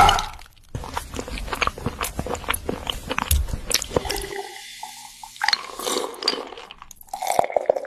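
An animal chewing and crunching on king crab: quick irregular crunches, cracks and wet smacks, easing off about four seconds in and then starting again.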